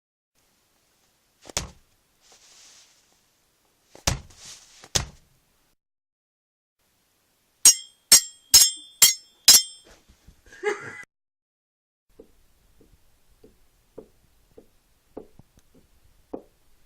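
A run of separate homemade foley effects: a few dull thuds, then five sharp metallic strikes in quick succession with a ringing tone, a short pitched burst, and a series of faint evenly spaced taps near the end.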